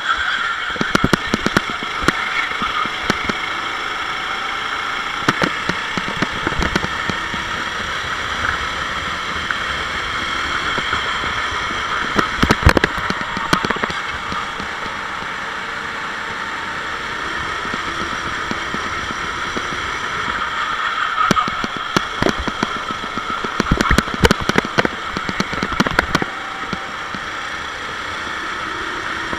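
Sodi SR4 rental kart's engine running hard on track from the kart's onboard, a steady engine note with clusters of short sharp crackles now and then.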